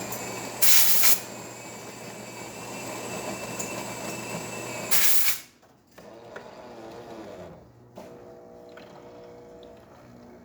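Jura Impressa J5 super-automatic espresso machine pumping water through the brew group for a single-shot test espresso, a steady buzzing hum. Two short loud hisses come about half a second in and about five seconds in, and the pump stops just after the second, leaving only faint sounds.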